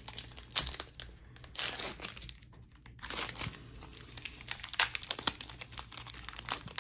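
Foil trading-card pack wrapper crinkling in the hands and being torn open, in irregular crackly bursts.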